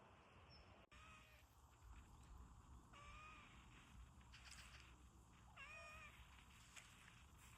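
Domestic cat giving three short, faint meows a couple of seconds apart, the last the loudest.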